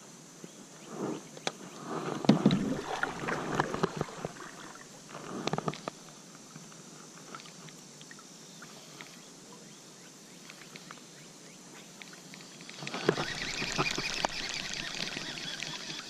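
Handling noise from hands and a baitcasting reel worked right against the microphone: irregular rustles and sharp clicks in the first few seconds, then a louder, longer stretch of rubbing and scraping near the end.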